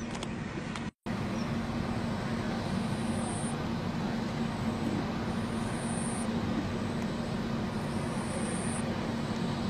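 Steady mechanical background rumble with a low hum. It drops out briefly about a second in, with faint high hissing pulses every couple of seconds.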